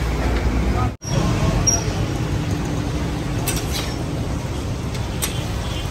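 Steady noise of a roadside kabab stall: traffic rumble mixed with the sizzle of beef chapli kababs deep-frying in a wide pan of oil. The sound cuts out for an instant about a second in.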